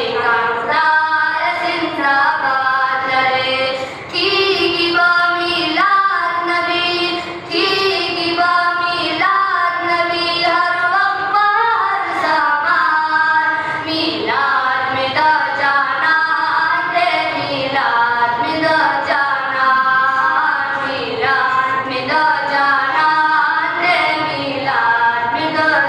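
Boys' voices reciting a Pashto naat, devotional poetry sung unaccompanied through a microphone, in a long, continuous melodic line with no instruments.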